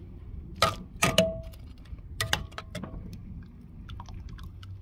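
Tongs clinking and knocking against a metal saucepan of barbecue sauce as chicken pieces are dipped: a handful of sharp clinks in the first three seconds, a couple ringing briefly.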